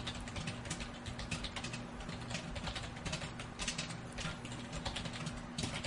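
Typing on a computer keyboard: quick, irregular key clicks, several a second, over a faint steady hum.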